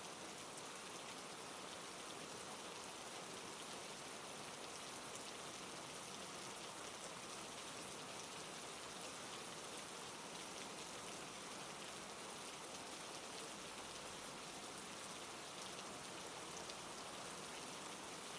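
Steady rain falling, an even hiss of rain with fine drop patter on a surface.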